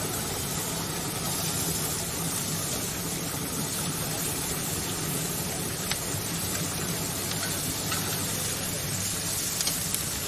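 Meat sizzling on a hot grill grate over a steady low hum, with a few light clicks of metal tongs on the grate as the pieces are turned.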